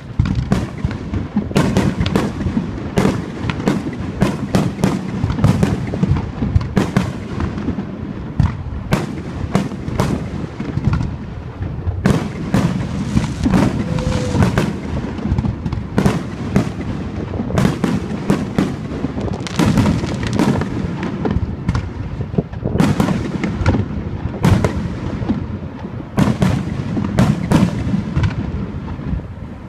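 Fireworks display: a dense, continuous run of shell bursts and crackling bangs, one on top of another, over a low rumble, with a brief whistle about halfway through.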